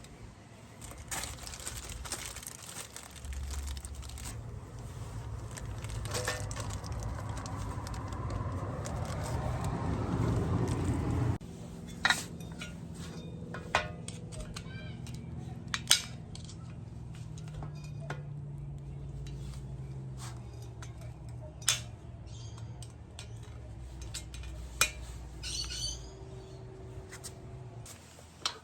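Metal tools and parts clinking during car repair work. A running noise grows louder for about ten seconds, then cuts off suddenly. After it, a steady low hum continues with scattered sharp metallic clinks.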